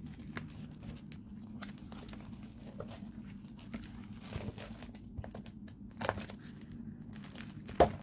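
Clear plastic sleeves of a large display folder crinkling and crackling as its pages are turned by hand, in scattered short bursts with the sharpest crackle near the end.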